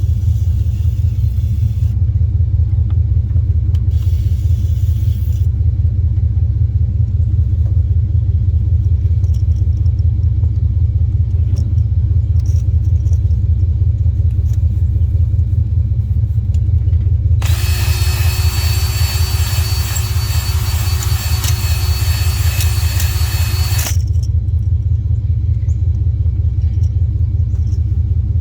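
An electric drill spins a three-stone cylinder hone with a steady whine for about six seconds in the second half, stopping suddenly. A loud, steady low rumble runs underneath throughout.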